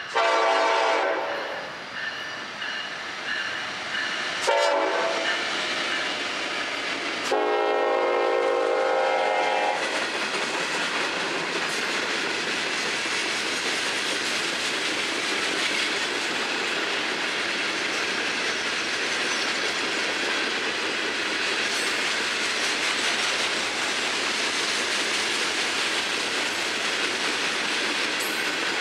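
Florida East Coast freight locomotive horn sounding three blasts (long, short, long), followed by the steady noise of a long train of hopper cars rolling past on the rails.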